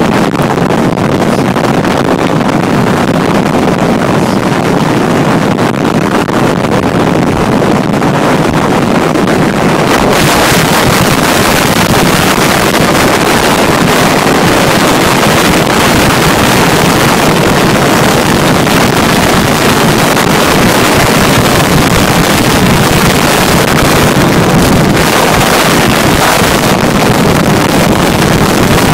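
Steady wind rushing over the microphone of a vehicle ridden at road speed, with engine and road noise underneath. The hiss gets brighter about ten seconds in.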